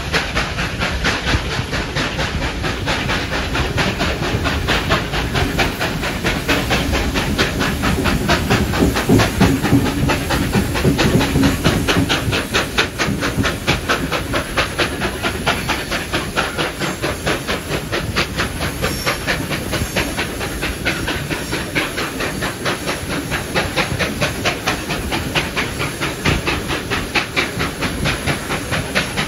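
Steam locomotive 3801, a NSW C38 class Pacific, working hard up a steep grade. Its exhaust beats come in a fast, even rhythm and are heard from a carriage further back in the train. The beats are loudest about a third of the way through.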